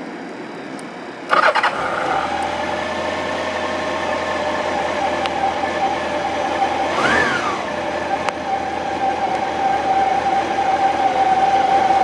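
Honda CB750 (RC42) air-cooled inline-four engine started on the electric starter about a second in, catching at once and settling into a steady idle. A short whine rises and falls in pitch about seven seconds in.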